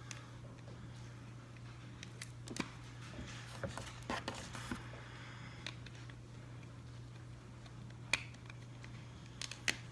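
Scattered faint clicks and rustles of small objects being handled, over a steady low hum.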